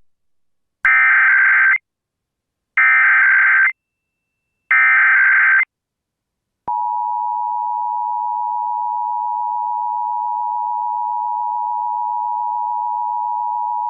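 Emergency Alert System header: three one-second bursts of digital data tones about a second apart, then the EAS two-tone attention signal, a steady two-pitch tone that begins about seven seconds in and holds. It opens a required monthly test of the alert system.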